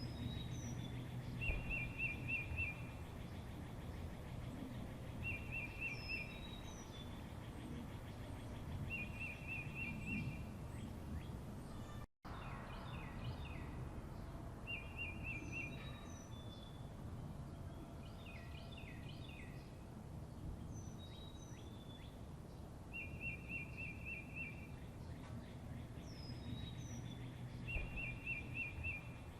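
Songbirds singing: one bird repeats a short, even trill every three to four seconds, among other brief high chirps and down-slurred notes, over a steady low background rumble. The sound cuts out completely for a moment about twelve seconds in.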